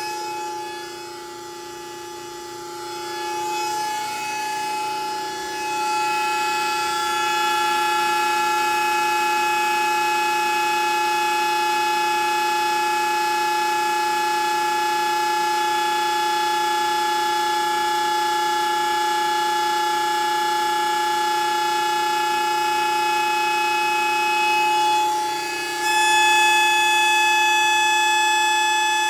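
Hydraulic power unit running a retract cycle: a steady, high-pitched pump whine. It is quieter and unsettled for the first few seconds before settling. Near the end it dips briefly and comes back a little louder with a changed pitch.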